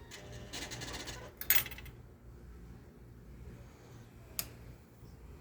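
Kawasaki Vulcan 2000 V-twin motorcycle giving a rapid metallic fluttering rattle on startup, lasting about a second and a half, then a single sharp click about four seconds in. The flutter is a fault the owner cannot yet explain, with the fuel injection warning light staying on.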